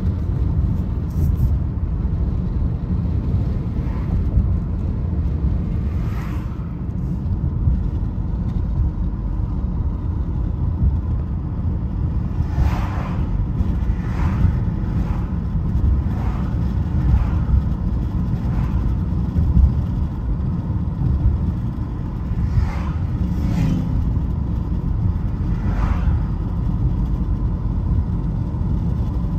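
Car driving along a two-lane road, heard from inside the cabin: a steady low rumble of engine and tyres on the road, with several short whooshes as oncoming cars pass.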